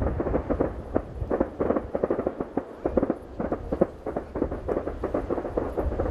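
Fireworks display: a rapid, dense series of bangs and crackling bursts from the shells over a steady low rumble.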